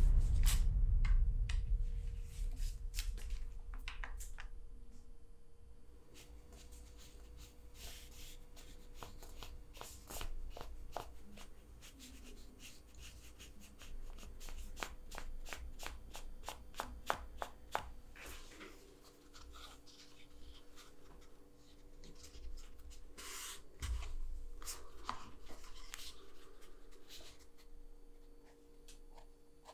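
Hands working small leather pieces and tools: scattered light clicks, taps and rubbing. A deep thump at the start fades over about two seconds.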